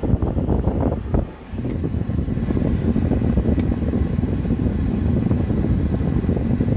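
Steady low rumbling noise inside the cabin of a Kia Sportage turbo-diesel, dipping briefly about a second and a half in.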